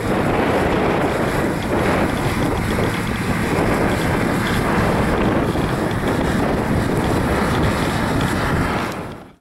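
Strong wind buffeting the microphone, with a distant tractor engine running underneath. The sound fades out at the very end.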